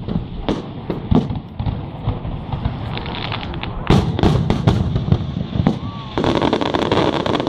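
Fireworks going off: a series of sharp bangs, with a cluster of them about four seconds in. From about six seconds, a dense run of rapid crackling pops follows.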